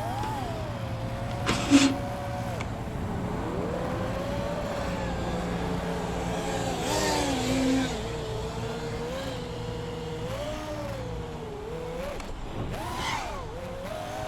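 Brushless motors and propellers of a 5-inch FPV freestyle quadcopter whining, the pitch rising and falling with the throttle. A sharp knock about two seconds in.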